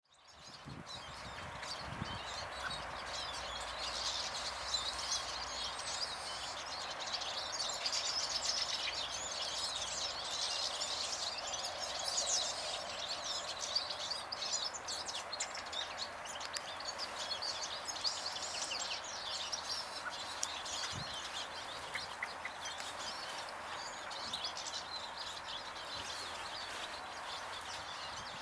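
Outdoor garden ambience: many small birds chirping and singing, busiest in the first half, over steady background noise. It fades in at the start.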